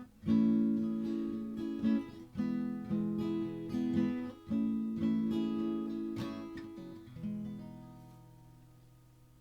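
Acoustic guitar strumming the closing chords of the song, ending on a final chord that is left ringing and slowly fades away.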